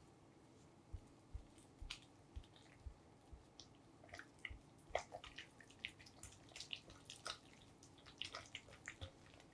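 Silicone spatula mixing softened cream cheese in a glass bowl: quiet, irregular sticky squelches and small clicks, busier in the second half, with a few dull low knocks about half a second apart in the first three seconds.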